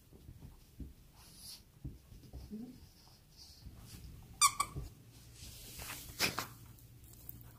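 Plush squeaky turtle toy squeaked by a poodle biting it: a short, sharp squeak a little past halfway, the loudest sound, and another squeak shortly after. Softer chewing and rustling of the fabric toy come between.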